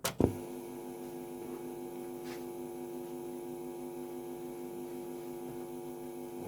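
Steady electrical mains hum, a buzz of several steady tones, following a few sharp clicks at the very start and with a faint tick about two seconds in.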